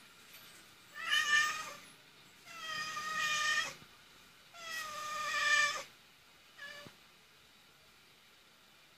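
Domestic cat meowing: three long, drawn-out meows of about a second each, then a short one.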